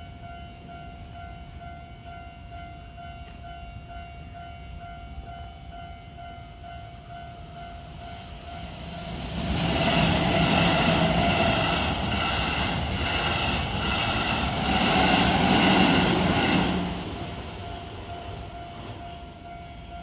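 Japanese level-crossing warning bell ringing steadily. From about nine seconds in, a Keihan 8000 series train passes through the crossing for about eight seconds, loud over the bell, its wheels clattering rhythmically over the rail joints. The bell is heard again on its own near the end.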